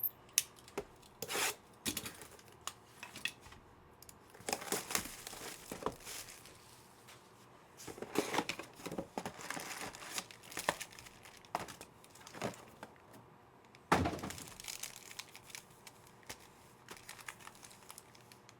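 Plastic wrapping and foil trading-card pack wrappers being torn open and crinkled by hand, in irregular bursts of rustling and tearing with sharp clicks.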